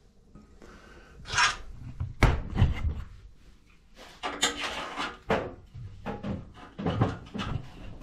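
Handling noises: a string of separate knocks, scrapes and rubs as hands work at a barometric draft damper and a galvanized steel flue pipe.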